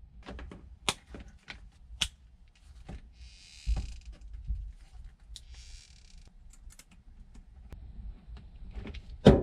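Hand-tool and wiring handling sounds: scattered clicks and knocks as a crimping tool works a connector onto a wire and a small socket wrench turns a ground bolt. Two short rustling hisses come midway, and a louder knock near the end.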